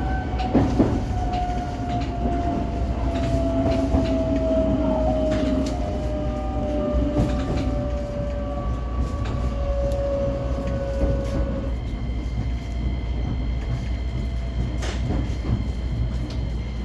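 Electric motor whine of a JR 125-series railcar falling steadily in pitch as the train slows, over a low running rumble and scattered rail clicks. About 12 seconds in, the falling whine gives way to a few steady high-pitched tones.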